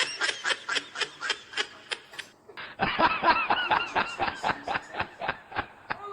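Two laughing sound effects, one after the other: a rapid, high-pitched laugh of quick pulses, about five a second, that stops about two seconds in, then after a short pause a second laugh of the same quick, pulsing kind.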